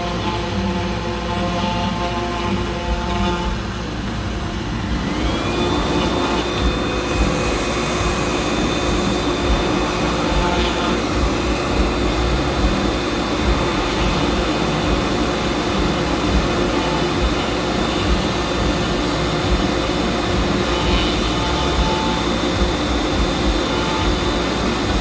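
Fox Alien 4040 CNC router running: about five seconds in, its 300-watt spindle motor spins up with a rising whine and settles at a steady pitch, running on over a rough, noisy hum. Before that, the machine gives a few steady motor tones.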